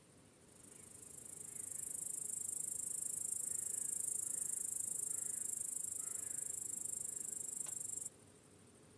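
Crickets chirping in a dense, high-pitched, rapidly pulsing trill that swells in over the first two seconds and then cuts off abruptly about eight seconds in.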